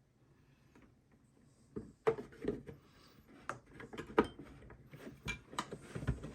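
Near silence, then from about a second and a half in a run of light clicks and knocks: a battery-substitute piece being handled and pressed into a toy's battery compartment.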